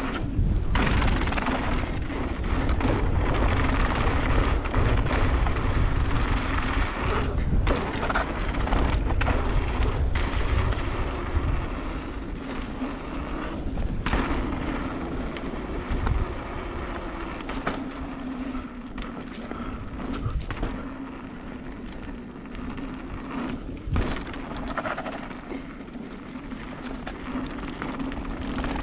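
A mountain bike rolling down a dirt singletrack: wind buffeting the microphone, tyre noise on loose dirt, and scattered knocks and rattles from the bike over bumps. It is loudest in the first half and eases after about twelve seconds.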